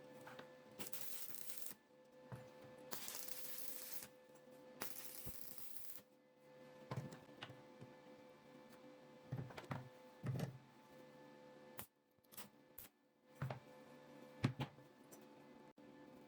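Faint scattered clicks and light knocks, a few close together near the middle and one more near the end, with three short stretches of hiss in the first six seconds over a faint steady hum.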